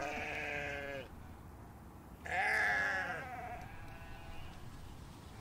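Sheep bleating twice: a bleat lasting about a second at the start, then a louder, longer bleat about two seconds in that falls in pitch and trails off.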